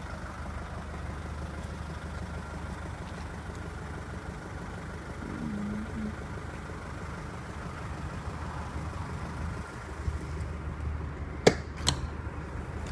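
Nissan Navara D22's 2.5-litre turbodiesel idling steadily, with two sharp clicks less than half a second apart near the end as the rear canopy door latch is opened.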